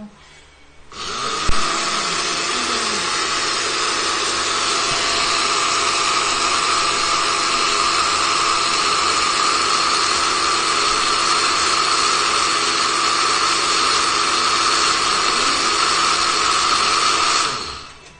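Electric blender motor grinding dry toasted sticky rice into powder in a glass jar. It switches on about a second in, runs at a steady high speed, then is switched off and winds down near the end.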